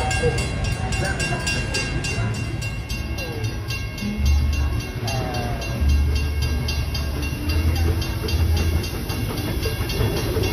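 Narrow-gauge steam train under way, heard from aboard a passenger car: a steady rhythmic clatter of about four beats a second over a low rumble.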